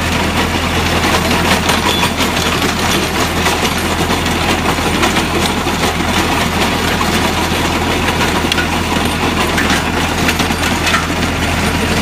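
Diesel tractor engine running steadily while a Sulky HRV130.9 vineyard rotary harrow's spinning tines churn compacted gravel, with a constant rattle and clatter of stones knocking against the steel tines and housing.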